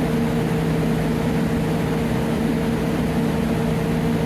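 Belt filter press dewatering digested sludge, running with a steady mechanical hum that carries a low tone and a higher tone over an even noise of machinery.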